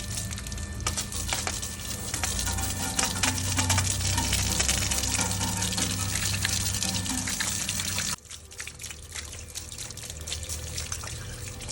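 Water jet spraying onto a car wheel and brake caliper, rinsing off iron fallout remover, as a steady hiss that cuts off suddenly about eight seconds in.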